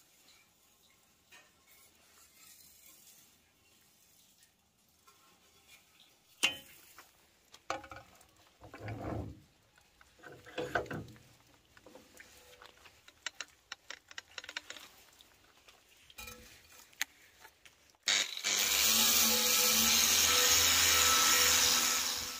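Knocks and clicks of a steel scooter exhaust pipe being handled and clamped in a bench vise. About four seconds from the end, an electric power tool starts suddenly and runs steadily and loudly, stripping the pipe's surface.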